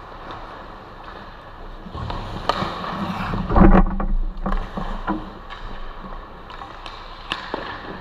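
Ice-hockey skates scraping and carving on rink ice, with sharp clacks of sticks and puck. The loudest flurry of scraping comes about halfway through, as players crowd in close.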